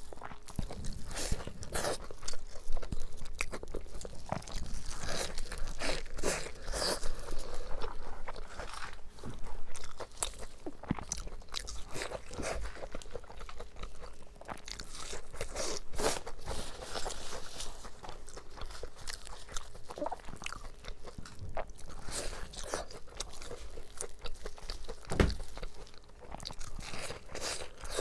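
Crunching and chewing of deep-fried, panko-breadcrumb-coated food, with crisp bites at irregular intervals.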